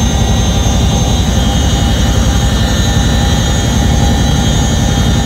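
Cabin noise inside a CH-47 Chinook military helicopter in flight: the low, fast beat of the rotors and engines, with a steady high whine from the transmission over it.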